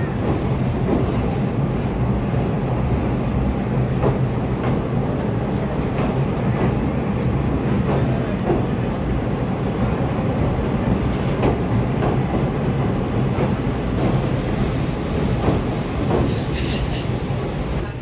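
Passenger train running on the rails, heard from on board: a steady rumble with irregular clacks of the wheels over the rail joints. Near the end a high wheel squeal joins in for a couple of seconds.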